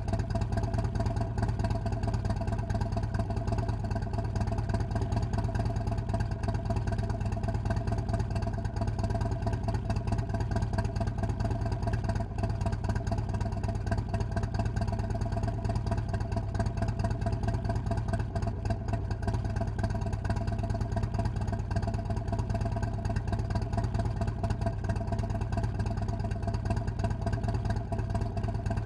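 Harley-Davidson Road King Special's Milwaukee-Eight 107 V-twin idling steadily through a Fuel Moto Jackpot 2-1-2 head pipe and Street Outlaw mufflers, with no revs.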